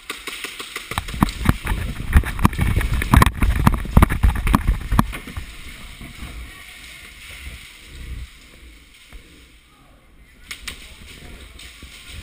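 Thumps, rustling and gear rattle of a player on the move, picked up by a helmet-mounted camera: dense irregular knocks for the first few seconds, then quieter rustling, with a few knocks again near the end.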